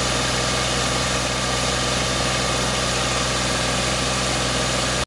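Tractor diesel engine running steadily, driving a tubewell pump through a shaft coupled to its rear wheel.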